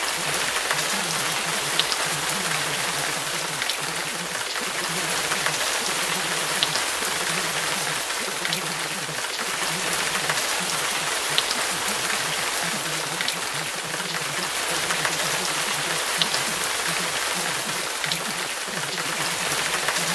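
Steady rain: an even hiss with scattered faint drop ticks, over a faint low murmur. It is the masking track over buried subliminal affirmations.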